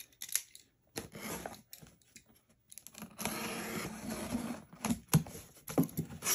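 A cardboard box being cut open: a few scattered clicks, then a long scraping cut along the taped seam about three seconds in, followed by a few sharp knocks and rustles as the flap is lifted.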